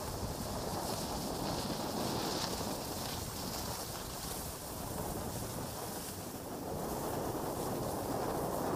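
Steady wind rush buffeting the camera microphone at the end of a long selfie stick while skiing downhill, with the hiss of skis sliding over groomed snow beneath it.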